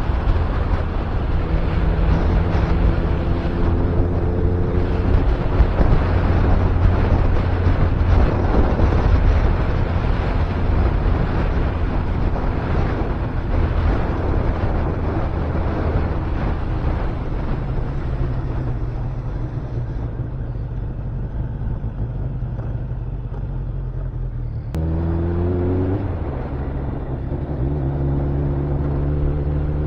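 Kawasaki ZZR1100's inline-four engine running through its exhaust, its pitch climbing as it revs a few seconds in and again after an abrupt change about 25 seconds in.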